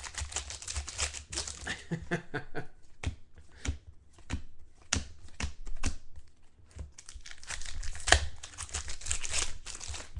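Trading-card pack wrappers crinkling and tearing as packs are opened, with scattered sharp clicks and taps of cards being handled in between.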